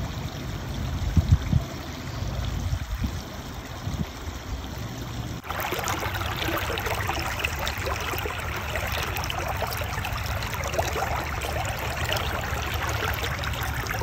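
Shallow creek water flowing and trickling over rocks, a steady rushing sound with some low rumbling in the first few seconds. About five seconds in it changes suddenly to a brighter, fuller babble of water splashing over stones.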